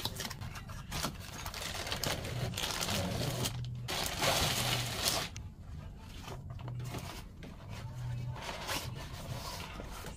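Packaging being handled and opened: irregular rustling, crinkling and scraping, loudest about four to five seconds in.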